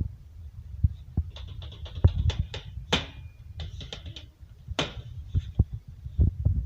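A takoyaki pan and its packaging being handled: scattered light knocks, clicks and rustles, with a few dull thumps.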